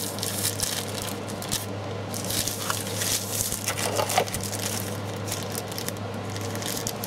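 Protective packaging being pulled off a table lamp by hand: irregular crinkling and rustling with small crackles and clicks, over a steady low hum.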